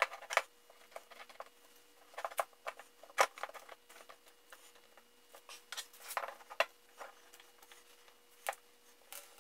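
Small metal clamps clicking and clattering as they are set and screwed tight along a glued wooden axe handle. There are a handful of sharp clicks and short scraping sounds, loudest near the start, around three seconds in and just past six seconds.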